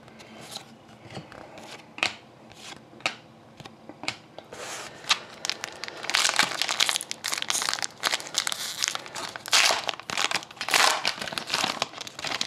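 A few light clicks of trading cards being handled, then the crinkling foil wrapper of a hockey card pack as it is slit open and the cards are pulled out.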